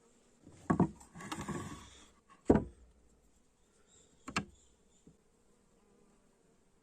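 Three sharp knocks, the second the loudest, with a short scraping noise between the first two.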